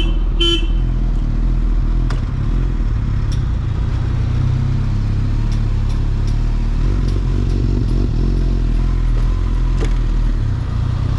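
Motorcycle engine running steadily. Two short horn toots come right at the start.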